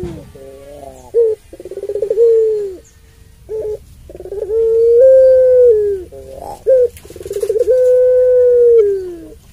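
Puter pelung, a domestic ringneck dove of the long-voiced type, cooing. It gives three long, drawn-out coos, each held level and then dropping in pitch at the end, with short coos between them.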